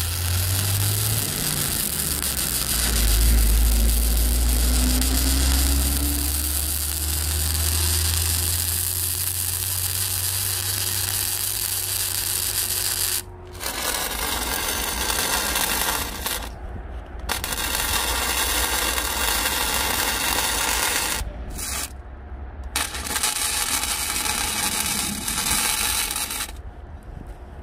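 Electric arc welding on steel: a steady hiss over a low hum, which breaks off and restarts several times in the second half.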